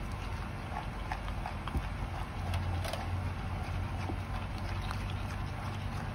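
A spatula stirring thick cream in a bowl: scattered soft clicks and taps as it works the cream against the bowl, over a steady low hum that grows a little stronger about two seconds in.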